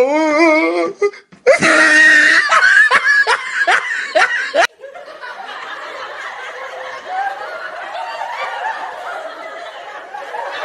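Loud laughter in quick repeated bursts that cuts off abruptly about five seconds in. It gives way to quieter background noise with faint voices.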